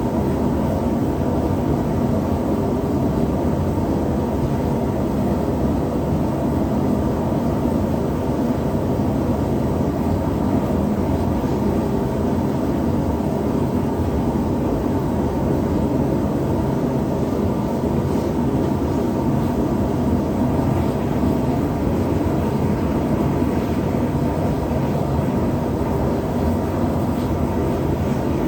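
Small gas forge running with the heat turned up: a steady, unbroken rushing noise while a knife blank heats inside.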